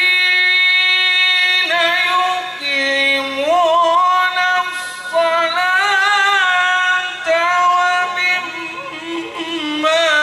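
A man's solo Arabic devotional chant sung into a microphone: a high voice holding long notes, each decorated with wavering, melismatic turns and steps in pitch, with short breaths between phrases.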